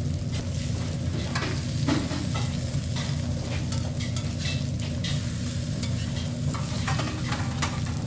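Food being stirred and fried, with frequent short clinks and scrapes of utensils, over a steady low hum.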